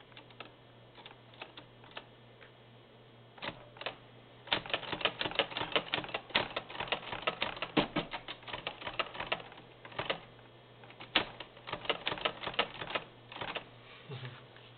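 Keys of a vintage Smith Corona manual typewriter being struck: a few separate strokes at first, then fast runs of typing from about four seconds in, with a short break partway through.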